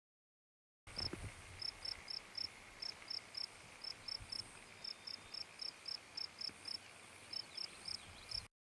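Insect chirping: short high chirps in quick groups of two to four, over a steady faint high hum.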